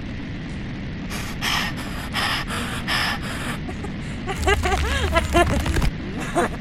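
Five short breathy gasps in a row, then a low rumble with many overlapping short high cries, like small voices screaming, laid over it.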